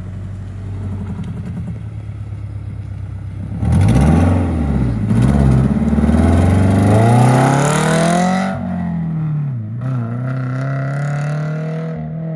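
Toyota GT86's flat-four engine running low, then revved hard as the car pulls away: the pitch swings up and down and climbs, drops sharply a little past halfway, then settles into a steadier note as the car drives off.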